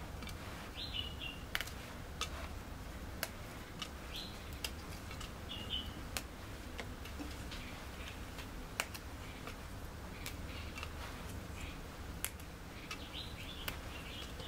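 Birds chirping in short calls every few seconds, with scattered sharp clicks and a steady low hum underneath.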